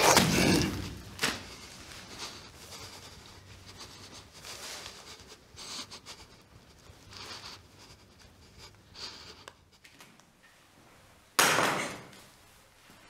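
A heavy thud at the start, then faint scattered movement sounds. A second loud, slam-like thud comes about eleven seconds in and dies away quickly.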